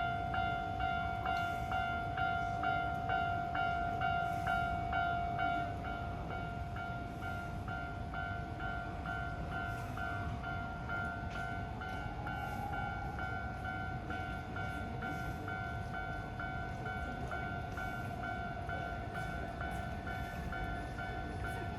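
Japanese railway level-crossing bell ringing in a steady, even clang, about two strikes a second, over a continuous low background hiss. The ringing becomes a little quieter and changes tone slightly about six seconds in.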